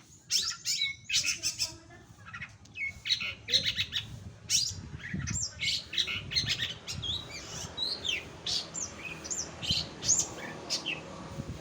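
Long-tailed shrike (cendet) singing in full voice: a fast, varied run of sharp chirps and short whistles that slide up and down in pitch.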